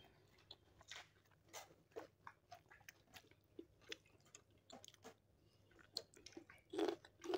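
Faint close-up eating sounds: chewing and crunchy bites of curd rice with raw onion and green chilli, a string of short irregular crunches, louder near the end as a raw green chilli is bitten.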